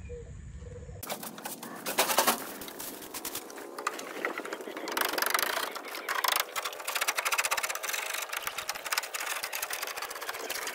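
Rapid scratching and scraping of a hand tool against the wooden nest-box shelves of a pigeon loft, scraping off built-up dirt and droppings, starting about a second in.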